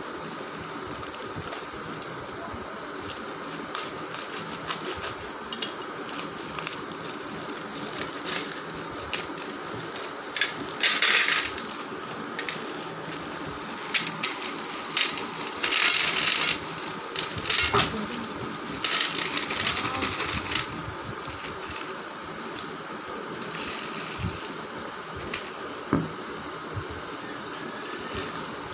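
Plastic wrapping crinkling in several bursts as it is peeled off a gray lump, with a few sharp clicks of pieces on a steel plate, over a steady background hum.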